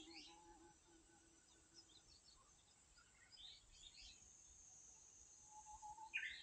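Faint birdsong outdoors: short high chirps in small clusters at the start, again about halfway through, and loudest just before the end. A faint steady high hiss runs in the middle.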